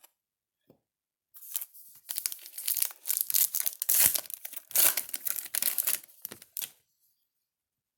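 Plastic wrapper of a Topps jumbo pack of baseball cards being torn open and crinkled. The crackling rustle starts over a second in and lasts about five seconds.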